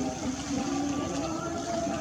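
Many people's voices calling and shouting at once, overlapping into a steady din.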